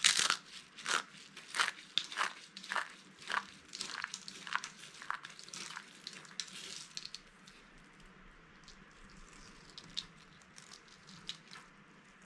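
Dry, watercolour-painted soap being crushed and crumbled: a run of sharp crunches, about two a second, for the first six seconds, then fainter scattered crackles.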